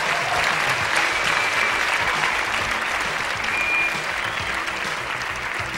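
Steady applause from an audience, with the contestants on stage clapping too.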